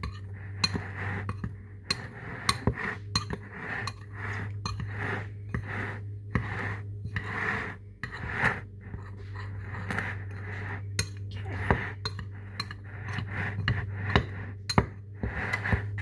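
Metal spoon stirring a dry mix of flour and spices in a glass mixing bowl: scraping through the flour with frequent sharp clinks of the spoon against the glass, over a steady low hum.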